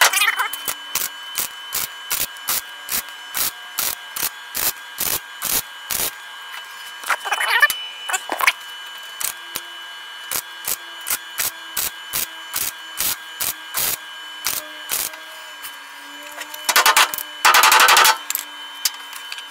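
Flux-core wire welder stitch-welding sheet metal on a truck fender: a regular run of short weld bursts, a couple a second, as the trigger is pulsed tack after tack. About 17 s in comes one longer burst lasting over a second.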